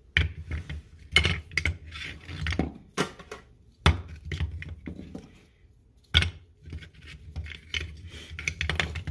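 Chalk line reels being picked up, handled and set down, clinking and knocking against each other and the bench in a run of sharp clatters.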